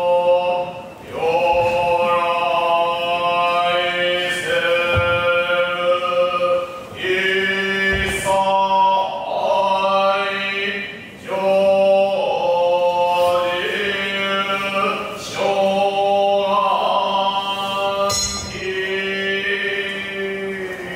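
Buddhist shomyo chanting: a male voice holding long, slowly bending notes in phrases broken by short pauses for breath, over a steady low drone, fading near the end.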